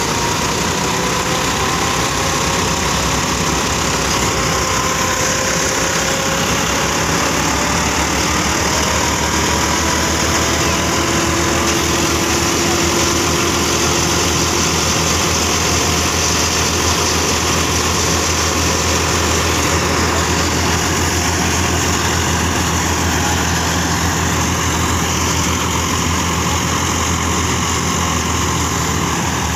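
Diesel tractor engine running steadily and loudly, with a faint whine slowly shifting in pitch over the first several seconds.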